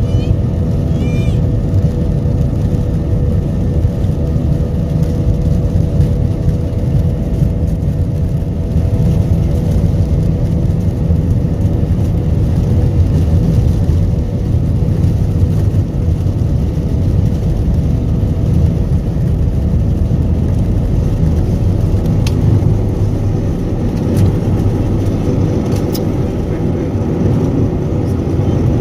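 Airliner jet engines during takeoff: a loud, steady deep rumble with a constant hum of engine tones running through it.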